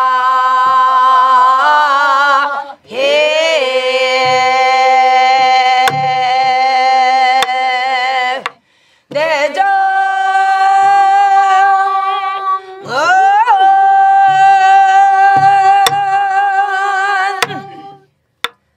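Korean Namdo folk-song singing: a woman's voice with the class singing along in unison, long held notes with heavy wavering vibrato and sliding bends up into new notes, breaking off for breath twice. Sparse strokes on a buk barrel drum, soft thuds with an occasional sharp stick click, keep the slow rhythm underneath.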